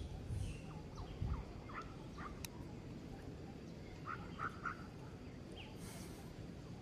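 Baby macaque giving short, high squeaking cries, a few scattered calls and then three in quick succession about four seconds in. Two low thumps come near the start.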